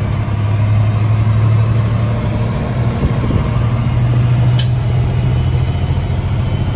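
Log truck's diesel engine running steadily, heard from inside the cab, with a short high click about halfway through.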